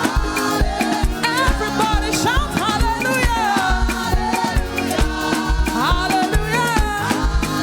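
Live church praise band playing an upbeat, African-style groove with a steady bass-drum beat and sustained chords, while a lead line slides up and down in pitch over them.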